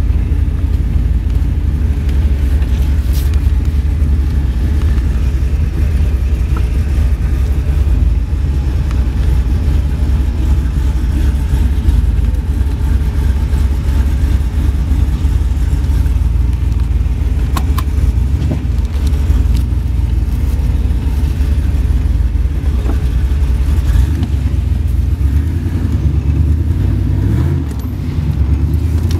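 A 1993 Camaro's 383 stroker small-block V8 with an LT4 Hot Cam and 1.6 rocker arms idling with a steady deep rumble, heard from the driver's seat inside the cabin. Near the end the rumble dips briefly and rises a little in pitch.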